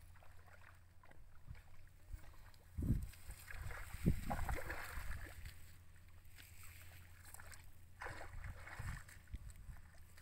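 Hands digging and splashing in a shallow muddy water channel, irregular sloshing with a couple of dull thumps about three and four seconds in and more splashing around eight seconds.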